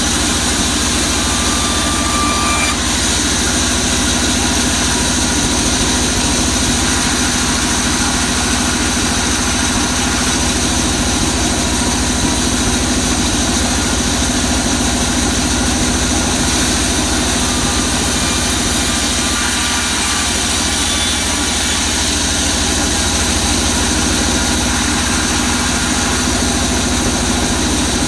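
Large sawmill band saw running steadily while a board of waru wood is ripped against its fence, a constant loud machine drone with a low pulsing underneath.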